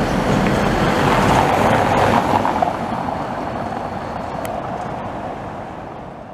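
Tatra T3 tram running along street track amid general street and traffic noise, fading out over the last few seconds.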